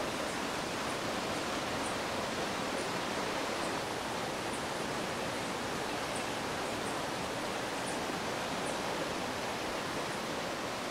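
Steady rush of water in a fast mountain stream, an even unbroken roar with no changes.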